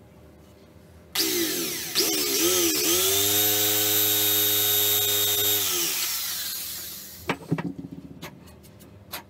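Corded electric drill boring a hole into a wooden block. The motor starts about a second in, its speed wavering at first, then runs steady and winds down with a falling pitch. A few sharp knocks follow near the end.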